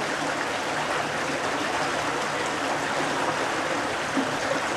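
A shallow creek flowing over rocks: steady, even running water.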